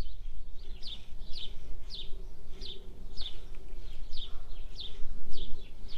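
A bird calling a repeated series of short, high chirps that slide downward, about two a second, over a steady low rumble.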